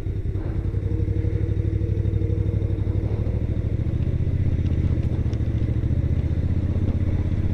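Motorcycle engine running steadily with an even pulsing note, getting slightly louder about a second in.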